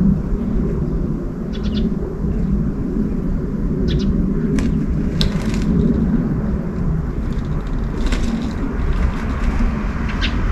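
A steady low outdoor rumble, with a few brief high chirps of small birds scattered through it.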